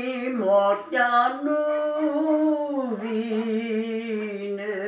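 Unaccompanied elderly woman's voice singing a slow Romanian folk song in a few long held notes, the pitch wavering and sliding down at the ends of phrases.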